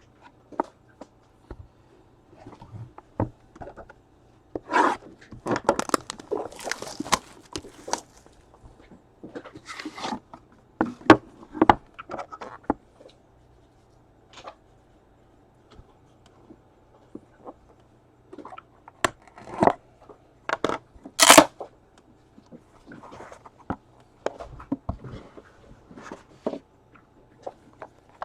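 Crinkling, tearing and rustling of plastic wrap and packaging as a sealed trading card box is opened and handled. It comes in scattered bursts with a few sharp crackles, the sharpest a little past twenty seconds in.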